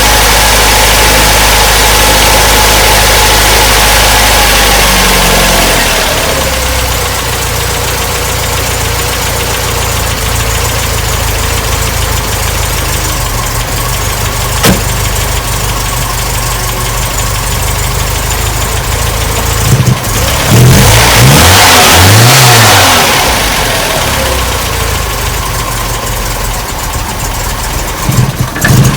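MGB's 1.8-litre B-series four-cylinder engine running after a restart on full choke: a fast idle that drops to a lower idle about six seconds in, then the throttle blipped up and down a few times about twenty seconds in. A single sharp click about halfway through.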